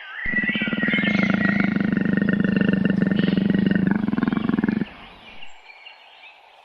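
A large animal's long, rasping growl made of rapid pulses, which breaks off about five seconds in.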